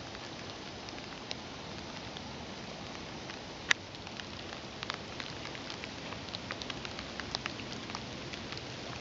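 Horse pulling hay from a hay net and chewing: scattered short crackles and clicks over a steady hiss, with one sharper click a little over a third of the way in.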